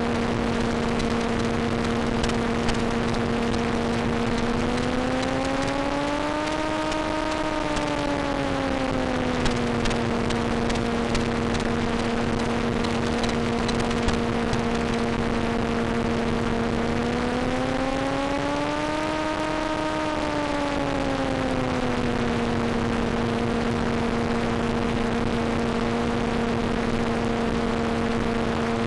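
Volantex Ranger EX's electric motor and propeller droning at a steady pitch over constant hiss. The pitch rises and falls back twice as the autopilot adds and eases throttle while circling in loiter.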